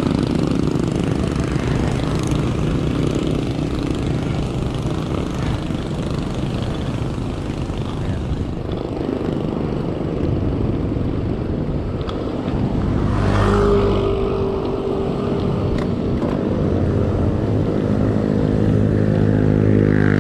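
Street traffic heard from a moving bicycle: a steady rush of noise with motor vehicle engines going by, one passing close about 13 seconds in and another engine drone building near the end.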